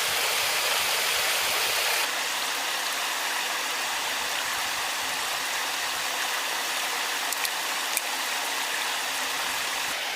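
Steady rush of flowing water, like a stream, dropping slightly in level about two seconds in, with a couple of faint clicks near the end.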